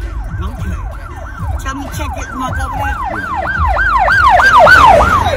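Emergency vehicle siren in a fast wailing yelp, about three rising-and-falling sweeps a second, growing louder and then dropping off near the end as it passes.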